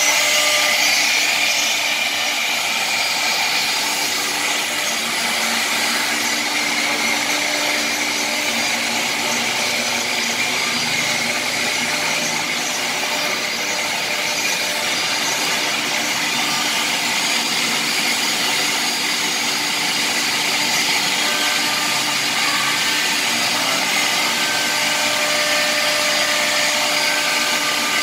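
M1325K3 CNC wood router and its dust extraction running steadily: a continuous high whine over a loud hiss.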